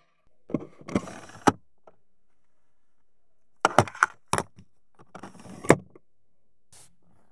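Three groups of sharp plastic clicks and short sliding rustles from handling a 2025 Volkswagen Passat Pro's interior controls: door-panel switches, the console gear selector, and the centre console's sliding cover, which ends in a sharp click about three-quarters of the way through.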